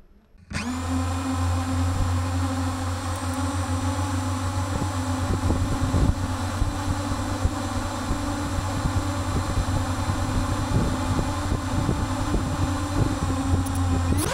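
DJI FPV drone's electric motors and propellers whining at a steady speed, starting suddenly about half a second in.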